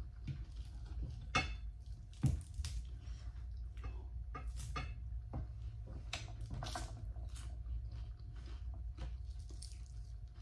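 A person eating with their fingers: many short clicks of chewing and lip smacking, with two sharper taps about one and a half and two and a quarter seconds in, over a steady low hum.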